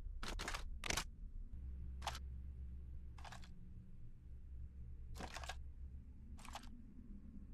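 Faint short clicks, about six spread unevenly over several seconds, over a low steady hum; no gunfire is heard.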